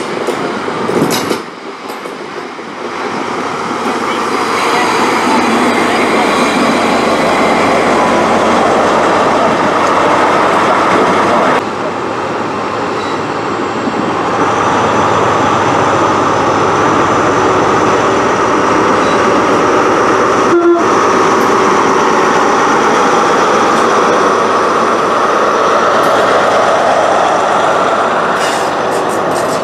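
Class 43 HST diesel power car running in along the platform and passing close by, its engine loud and steady, followed by the coaches rolling past on the rails.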